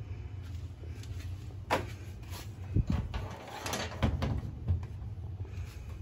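A 1997–98 Lasko Ultra Force box fan (model 3700) running with a steady low hum. Several sharp knocks and clatters, the loudest sounds here, come between about two and five seconds in.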